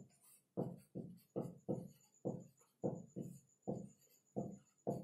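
Felt-tip marker writing on a whiteboard: a quick, irregular run of short squeaky strokes, about three a second, as the letters are drawn.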